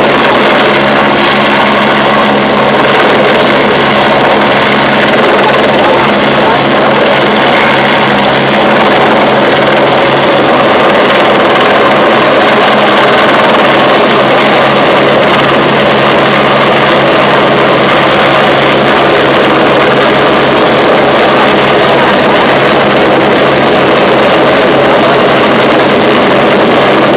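Helicopter overhead, its rotor and turbine engine making a loud, steady din while it carries an underslung load.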